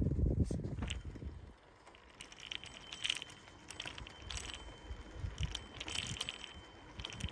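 Bicycle rattling along a rough, cracked track: a low rumble for the first second and a half, then scattered metallic clicks and jingling rattles from the bike as it rolls over the bumps.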